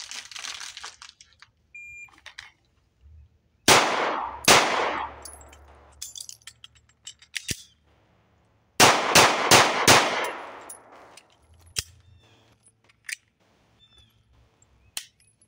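A shot-timer beep, then two 9mm shots from an HK P2000 pistol under a second apart. After a pause of about four seconds for a slow magazine reload, four more shots come in quick succession, each with a ringing echo.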